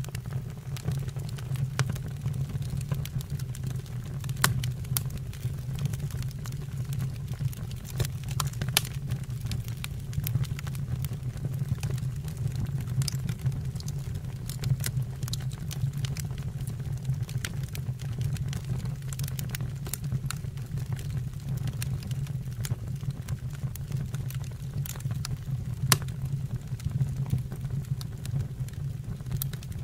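Fire burning in a fireplace, crackling with frequent sharp pops over a steady low rumble.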